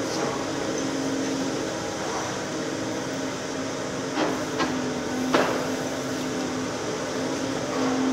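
Volvo EC750E high-reach demolition excavator running steadily with a droning engine and hydraulic hum while its demolition shears crush brickwork. A few sharp cracks of breaking brick come about halfway through.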